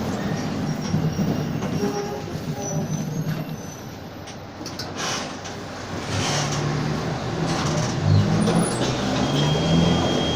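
Mercedes-Benz OF-1722M bus under way, heard on board: a steady low diesel-and-drivetrain drone that eases off about four seconds in and then builds again, strongest near the end. The bus's driveshaft was growling in second gear at the time.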